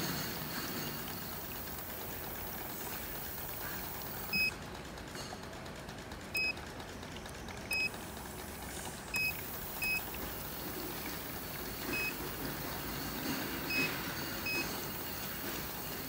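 Short single beeps from the touch buttons of an O2toDerm oxygen dome machine's control panel, eight of them spread irregularly through the stretch as the oxygen flow setting is stepped up and down. Under them runs the steady hiss of the machine running.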